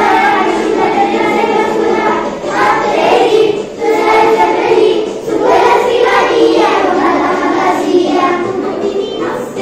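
Young children singing a song together in chorus.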